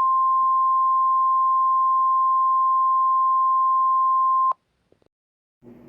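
NOAA Weather Radio 1050 Hz warning alarm tone: one steady, unbroken tone that cuts off abruptly about four and a half seconds in. After a moment of silence, a low hum and hiss come in just before the end.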